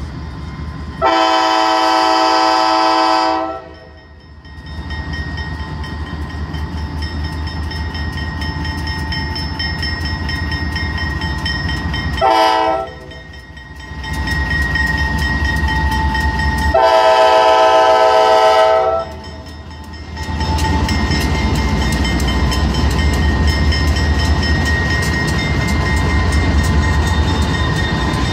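CSX diesel freight locomotive's air horn sounding for a grade crossing: a long blast about a second in, a short blast near the middle, then another long blast. Under the horn, the low rumble of the locomotives' diesel engines grows louder as the lead units draw up and pass.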